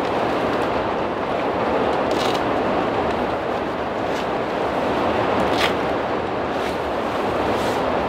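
Heavy rain heard from inside the cabin, a steady dense hiss with a few sharper hits scattered through it, which may be hail mixed in with the rain.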